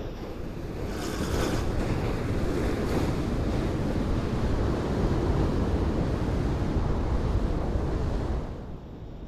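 Sea surf breaking and washing around a jetty's pilings and rocks, with wind rumbling on the microphone. The wash swells about a second in and dies down near the end.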